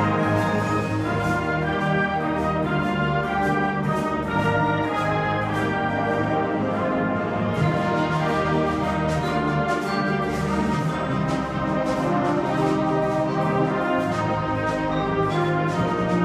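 Concert wind band playing a full passage of sustained chords, with light percussion strokes over them that come more often in the second half.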